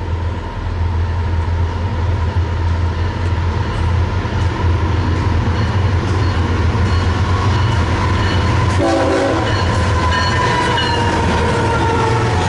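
BNSF diesel freight locomotives approaching and passing with a steady low engine rumble; about nine seconds in the locomotive horn sounds a held, multi-note chord that carries on as the lead units go by.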